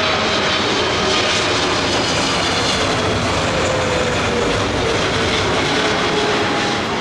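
Jet noise from a Boeing 777-300ER's twin GE90-115B turbofans as the airliner flies past on landing approach with gear down. A loud, steady rush with a faint whine that slowly falls in pitch.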